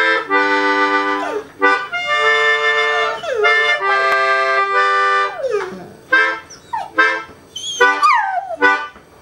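Melodica playing held reggae chords, then shorter notes, with a dog howling along in curving, falling notes near the end.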